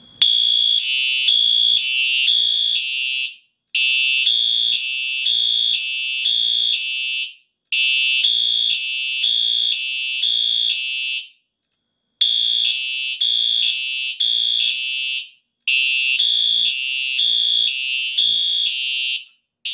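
Wheelock AS and Simplex TrueAlert fire-alarm horn strobes sounding together, a loud, high, pulsing electronic horn, with the Wheelock far the louder. The sound cuts out completely four times at uneven spacing: the TrueAlert's coding is thrown off by sharing one circuit with the Wheelock AS.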